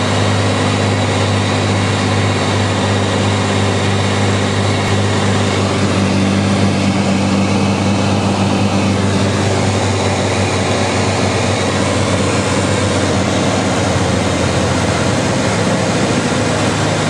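Cirrus SR22 Turbo's six-cylinder piston engine and propeller droning steadily, heard inside the cabin on final approach to landing. The drone's upper tone fades a little past halfway, leaving a plainer rushing sound.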